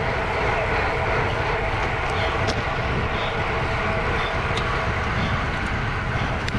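Wind rushing over the microphone of a camera riding along on a racing bicycle at speed, a steady low rumble with a few faint clicks.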